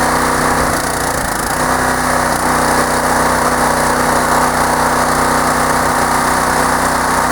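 Small gasoline engine of a wood splitter running steadily at idle.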